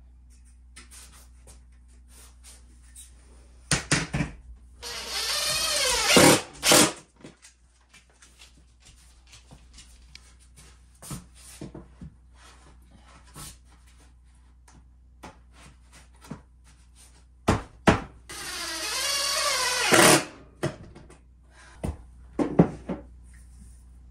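A handheld power tool runs in two bursts of about a second and a half, its pitch dropping near the end of each, as pine wall boards are fastened to the wall. Sharp knocks and clicks of the boards and tools come just before and after each run.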